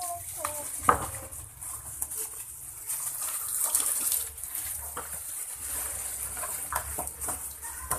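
Crumbly fishing bait mix sliding and pouring out of a plastic basin into a thin plastic bag, with the bag rustling and crinkling. The hiss swells about three to four seconds in, and there are a few sharp clicks, the loudest about a second in.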